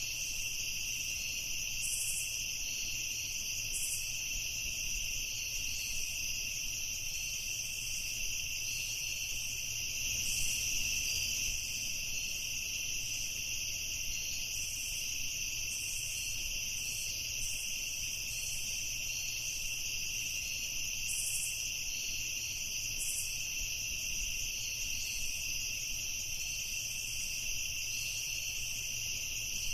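Night chorus of crickets trilling steadily in overlapping high-pitched tones, with brief higher chirps breaking in every second or two.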